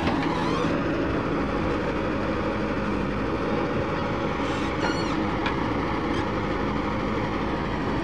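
JCB 3DX backhoe loader's diesel engine running steadily as the backhoe digs soil and lifts a loaded bucket.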